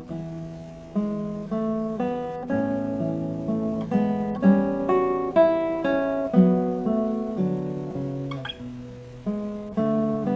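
Background music: solo acoustic guitar playing a slow piece of plucked notes and chords.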